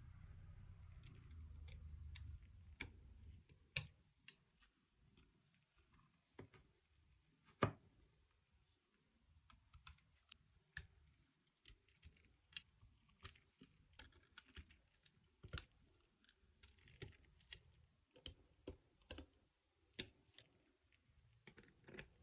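Faint, irregular clicks and taps of small electronic parts and hand tools being handled during assembly, with a low rumble in the first few seconds.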